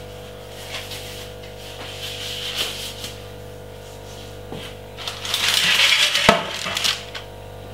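Small kitchen handling noises: scattered light clicks and taps, then a louder stretch of rustling and scraping with clicks about five seconds in, lasting a couple of seconds, over a steady low hum.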